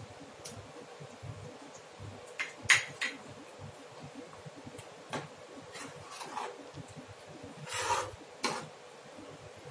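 Metal spoon stirring thick curry paste in a metal pan, scraping and clinking against the pan in scattered strokes, the sharpest clink about three seconds in and a longer scrape near the end.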